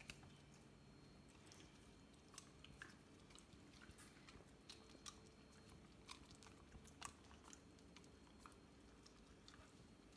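A whippet chewing and licking sticky peanut butter: faint, irregular smacking clicks of the mouth and tongue.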